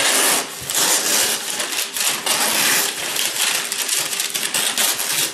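Baking paper crinkling and rustling as it is handled, a dense run of irregular crackles.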